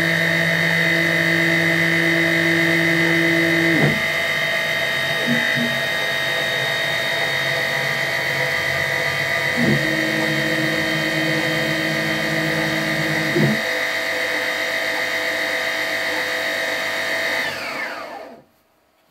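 CNC-converted Optimum BF20L milling machine: the spindle motor turning at 3000 rpm with a steady high whine, while a lower drone from the axis drives comes in twice for a few seconds. Near the end the whine falls in pitch and dies away as the spindle spins down and stops.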